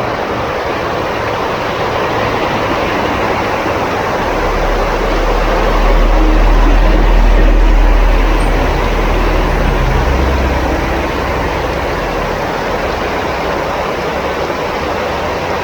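Steady road noise on a rain-soaked road, with a heavy vehicle's low rumble growing, passing about six to eight seconds in, and fading away.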